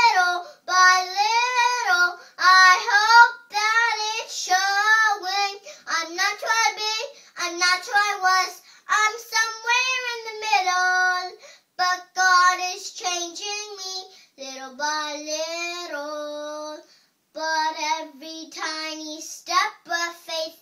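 A young girl singing a children's worship song solo and unaccompanied, in a run of short phrases with brief breaths between them.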